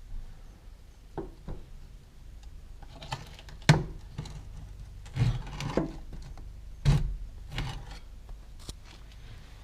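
A handful of irregular knocks and clunks, the sharpest about a third of the way in and again about two-thirds in, over a faint low hum.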